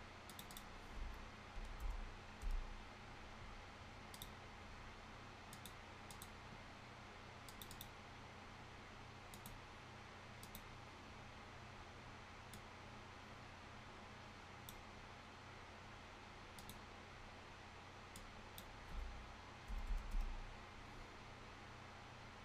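Faint, scattered computer mouse clicks and key presses, a few seconds apart, with a short flurry of them near the end, over a steady low hum of room or computer noise.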